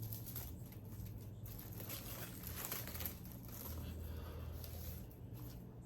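Packaging being handled: faint, irregular rustling and crinkling as the figure box is pulled from its wrapping, over a steady low hum.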